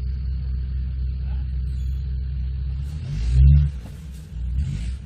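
Off-road 4x4's engine running steadily at low revs, revved hard once about three seconds in, then again more briefly near the end.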